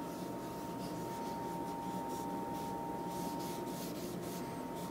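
A cloth wiping oil-based finish onto a hardwood box, heard as repeated soft swishing strokes. A steady high hum runs under it.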